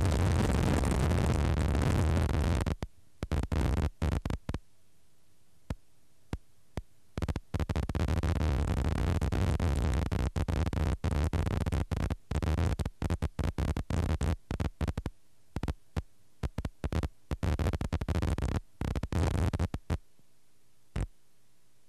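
Helicopter cabin noise, a loud steady rumble heavy in the low end, that cuts out abruptly about three seconds in and then keeps breaking up, switching on and off in quick chunks, until near the end, when only a faint steady hum is left.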